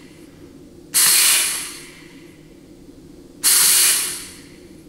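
Compressed-air blow gun hissing in two short blasts, each cut in sharply and tailing off, as air is fed into the forward clutch apply passage of a 700R4 transmission case during a case air check to confirm the clutch applies.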